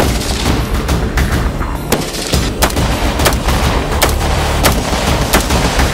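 A string of rifle shots, sharp cracks about one and a half a second from about two seconds in, over steady background music.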